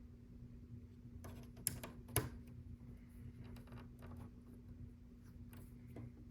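Small plastic LEGO pieces clicking as they are handled and pressed onto the build, with two sharper clicks about two seconds in and lighter ticks after, over a faint steady hum.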